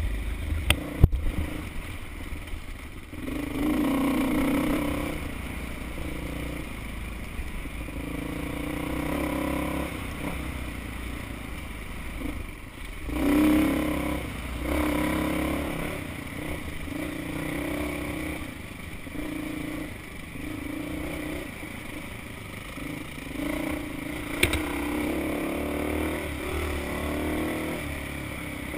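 Dual-sport motorcycle engine on a dirt trail, revving up and easing off again and again as the throttle opens and closes. A few sharp clicks, near the start and again near the end.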